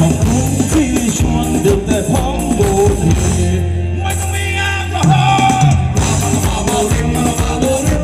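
Thai ramwong dance music from a live band with singing, played loud with a steady beat. Past the middle the drums drop out for about a second and a half over a held bass note, then the full beat comes back.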